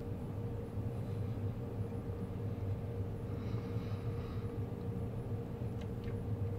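Steady low room hum with a faint held tone over it. Faint chewing of a tiramisu cupcake is heard for about a second, some three and a half seconds in.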